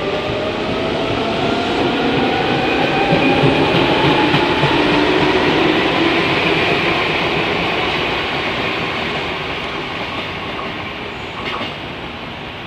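Keio 3000 series electric commuter train running past and pulling away. A whine rises in pitch over the first couple of seconds, and the wheel-and-rail running noise swells to its loudest a few seconds in, then slowly fades.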